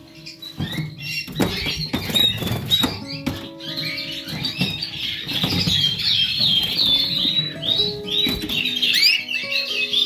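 Canaries chirping in quick gliding notes over instrumental background music with held tones; the chirping thickens into a fast run in the second half, and there are a few light clicks and rustles in the first few seconds.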